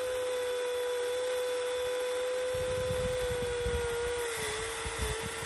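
Electric motor of a Huina RC excavator whining steadily as it works the arm, its pitch dipping slightly near the end as it takes load. A low crackle joins from about halfway through.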